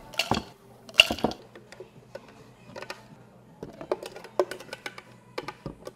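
Drinking glasses knocked down on a stone counter, two sharp ringing clinks in the first second, then diced strawberries pattering and ticking into a glass for a couple of seconds. A steady low hum runs underneath.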